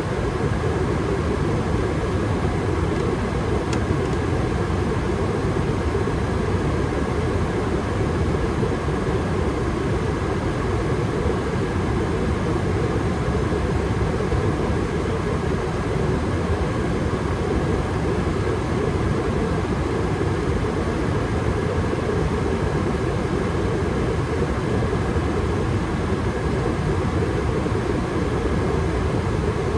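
Gas furnace running steadily under a combustion test, its burners firing with the fans going: an even, constant noise with no starts, stops or changes.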